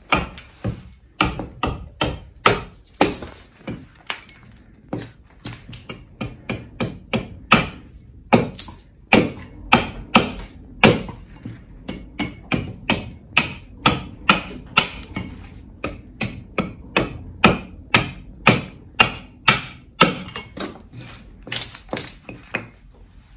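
Rinaldi axe chopping down a green-wood stick held upright on a wooden chopping block, carving chips off it. A steady run of sharp knocks, about two or three a second, stopping near the end.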